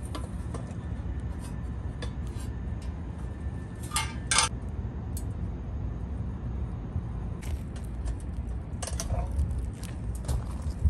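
Metal clinks and taps of a small steel rocket stove being handled, its lid gripped with multitool pliers: two sharp clinks close together about four seconds in and a few more near the end, over a steady low rumble.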